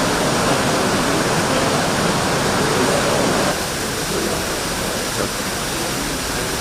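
Steady rushing background noise with indistinct voices murmuring beneath it, like a busy reception hall; it drops slightly in level about three and a half seconds in.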